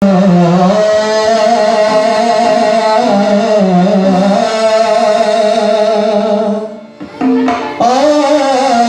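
A man singing long, sliding held notes in a South Asian style over instrumental accompaniment, with a short break about seven seconds in.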